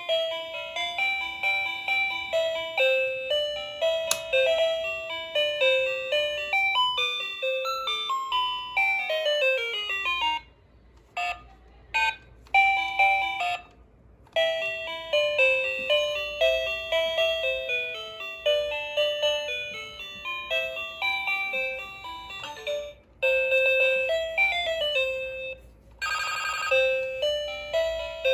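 A toy cordless phone's electronic sound chip plays beeping tunes through its small speaker, note after note. A falling run of notes comes about eight seconds in, and there are a few short pauses with single beeps after it. Near the end comes a fast warbling trill.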